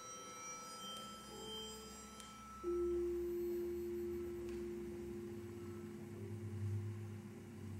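Electroacoustic music made of sustained pure electronic tones. Several faint high tones fade out over the first two seconds; about 2.7 s in a louder steady mid-pitched tone enters and holds, over a low drone that swells near the end.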